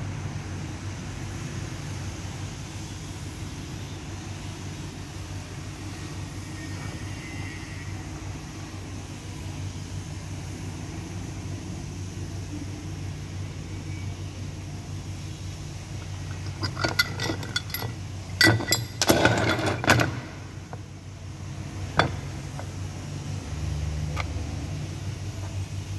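Metal clinks and knocks from handling the oil pump parts: a quick cluster about two-thirds of the way in, then two single clicks. A steady low hum runs in the background throughout.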